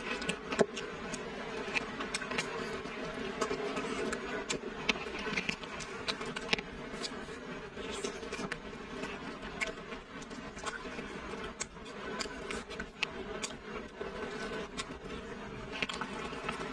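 Close-miked eating sounds: wet chewing, lip smacks and sticky clicks as braised pork shank meat is torn apart by plastic-gloved hands and bitten, over a steady low hum.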